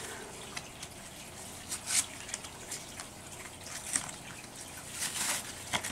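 Soft, intermittent crinkling and rustling of plastic and paper packaging, in a handful of short rustles, busiest near the end.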